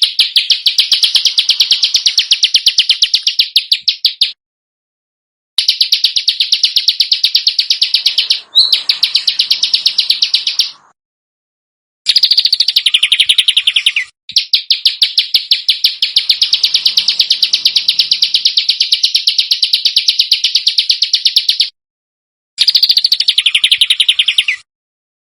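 Recorded songbird giving long runs of rapid, harsh, high-pitched repeated notes, a dense rapid-fire screech used as masteran training song. The runs come in about five bursts of two to seven seconds, separated by short silences.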